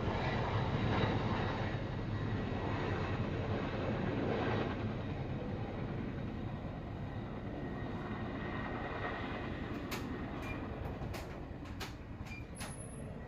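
Rumble of a passing vehicle, loudest at first and fading steadily away, with a few sharp clicks near the end.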